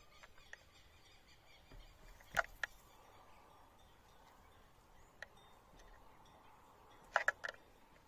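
White-naped jays feeding at a papaya on a wooden rail, with quick clusters of sharp taps or clicks, three strokes about two and a half seconds in and a tighter burst near the end.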